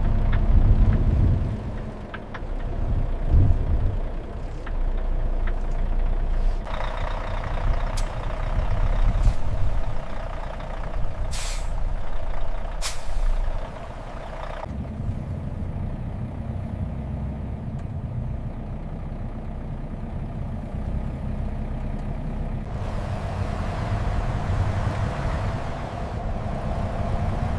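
Heavy truck running, with two short hisses of air from its air brakes about a second and a half apart near the middle. The sound changes abruptly a few times.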